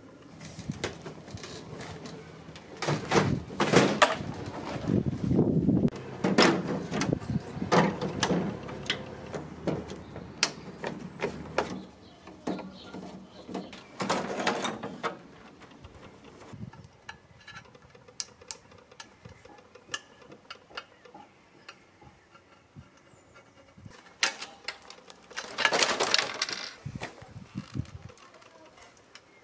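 Knocks, clicks, scrapes and rattles of a CRT television's plastic back cover and inner parts being handled as the set is taken apart. The noise is busiest in the first half, then quieter with a few scattered clicks, and there is another burst of handling near the end.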